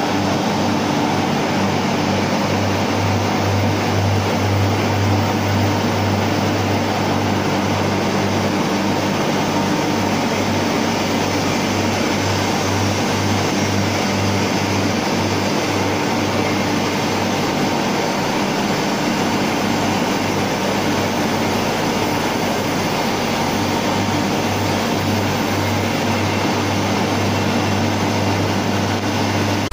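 BHEL steam turbine-generator set running: a loud, steady deep hum under an even rushing machine noise.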